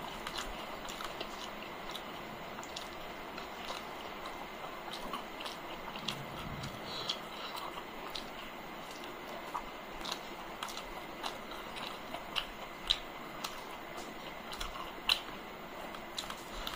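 Close-up eating sounds: chewing and lip smacks of rice and curry eaten by hand, with fingers mixing food on a steel plate. Many small sharp clicks are scattered throughout, with a few louder ones in the second half.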